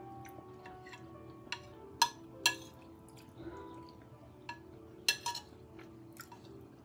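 Metal spoon clinking against a ceramic plate while eating, in a few sharp clinks: two close together about two seconds in and another about five seconds in.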